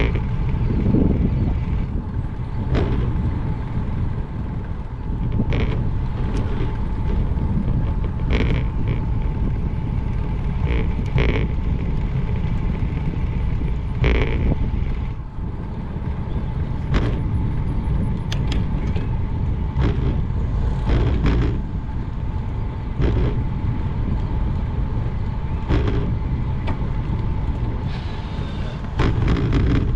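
Wind rumbling on the microphone of a Specialized Roubaix SL2 road bike riding along a concrete path. Irregular sharp clicks and knocks come every second or few from the bike jolting over bumps and pavement joints, over a faint steady whine.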